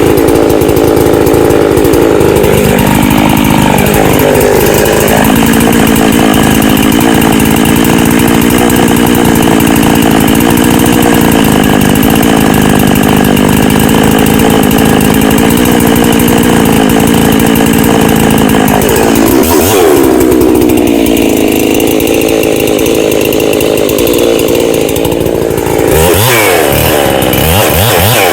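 Ported Husqvarna 365 Special two-stroke chainsaw running at full throttle through a cut. Its engine note sags under load a few seconds in and recovers, then holds steady. Near the end the pitch swings quickly up and down as the throttle is worked.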